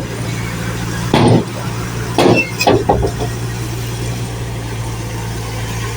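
Construction machinery running with a steady low hum, broken by short loud bursts about a second in and several more between two and three seconds in.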